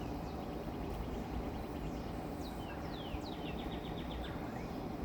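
Small birds chirping: several quick falling whistles and two fast trills of short repeated notes, over a steady low background hum.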